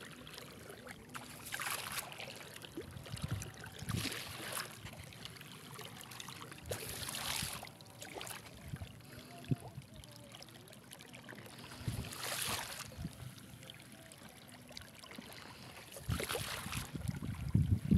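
Shallow seawater sloshing and splashing in soft, irregular surges every few seconds, louder right at the end.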